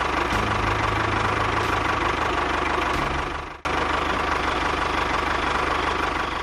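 Tractor engine running steadily, cutting out for a moment about three and a half seconds in and starting again.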